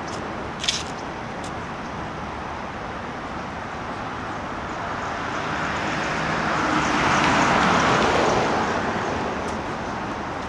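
A road vehicle passing by over steady outdoor traffic noise, its sound swelling to a peak about three-quarters of the way through and then fading. A short sharp click comes less than a second in.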